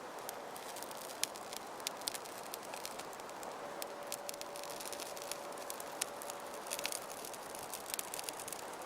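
Birch bark and small dry sticks crackling as they catch fire inside a Swiss army volcano stove: irregular sharp pops and snaps over a steady hiss of flame.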